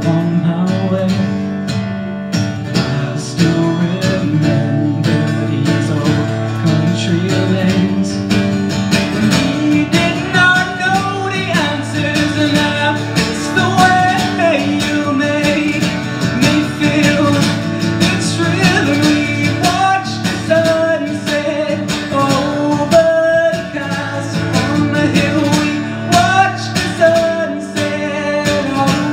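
Live song: a male voice singing over a steadily strummed acoustic guitar, the voice standing out more strongly from about ten seconds in.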